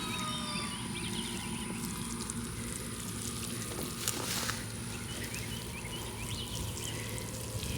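Water from a hose pattering and hissing onto freshly planted soil, with small birds chirping faintly and a short crackle about four seconds in.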